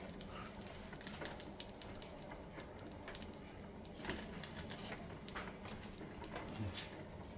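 Cuisinart drip coffee maker brewing: faint, irregular ticking and crackling as its heating element sizzles the water passing up through it, with a slightly louder tick about four seconds in.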